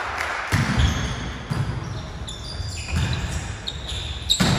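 Volleyball rally on a wooden gym floor: dull thuds of the ball being struck and of players' feet, the loudest about half a second in and near the end, with many short, high squeaks of shoes on the floor.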